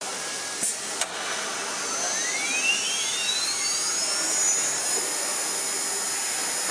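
CNC router spindle spinning up on an automatic-tool-change machine. Two sharp clicks come in the first second, then a whine rises steeply in pitch for about three seconds and settles into a steady high whine.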